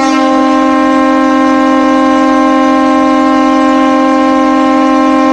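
The Saint John Sea Dogs' ice hockey goal horn sounding one long, steady blast, signalling a goal.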